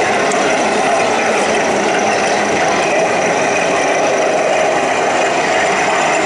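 1/16-scale radio-controlled model tanks running, a steady engine-like drone without a break.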